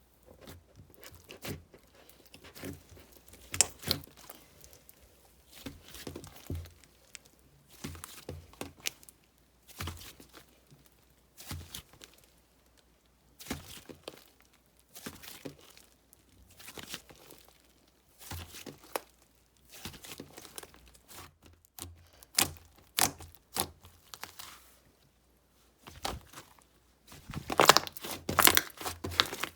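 Hands squishing, stretching and poking a clay-mixed slime, giving irregular sticky crackles and soft tearing pops, with a dense run of louder crackling near the end.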